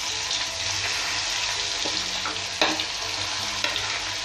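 Marinated chicken pieces sizzling as they fry in hot oil in a kadai, a steady crackling hiss, with a spatula stirring them. A single sharp knock comes about two and a half seconds in.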